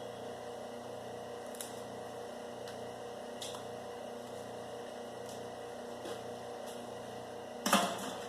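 Electric motor of a copper wire stripping machine running with a steady hum, a few faint ticks, and one brief loud clatter near the end.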